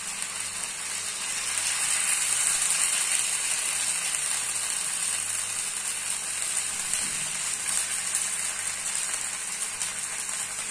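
Potato-and-poha batter sizzling in oil on a hot flat griddle: a steady high hiss, a little louder between about two and four seconds in.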